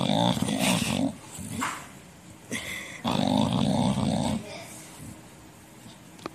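English bulldog growling with a toy in its mouth: two long growls, the first at the start and the second about three seconds in.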